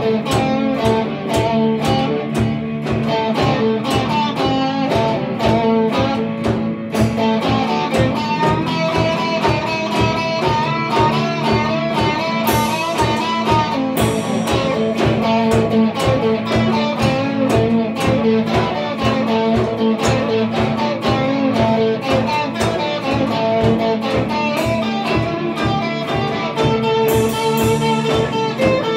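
Instrumental rock played live on two electric guitars and a drum kit: a steady drum beat under guitar lines, with cymbal crashes about halfway through and again near the end.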